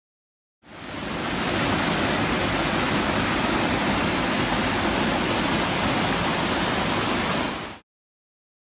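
River water rushing steadily over boulders in a small cascade of white water. It fades in just after the start and cuts off abruptly near the end.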